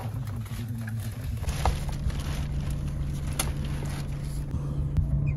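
A steady low engine hum with a few faint clicks.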